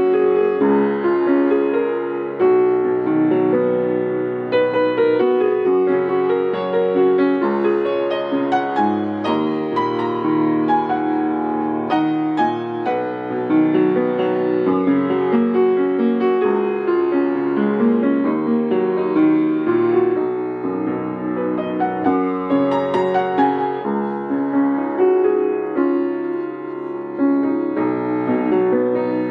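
A 40-year-old Hellas upright acoustic piano played continuously with both hands, several notes sounding together, its hammer action exposed with the upper front panel off.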